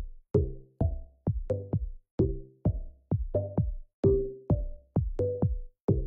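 Background music with a steady beat, a little over two beats a second, with pitched notes sounding on the beats.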